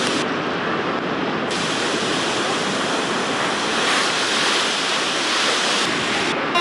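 Ocean surf breaking on the shore: a steady rush of waves.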